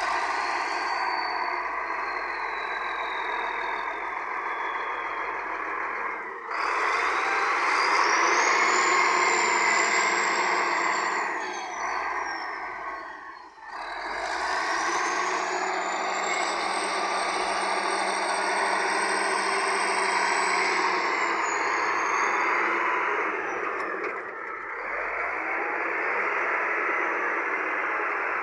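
Heavy earthmoving machine's diesel engine working under load while spreading murram, with a high whine rising and falling over several seconds at a time. It eases off briefly three times.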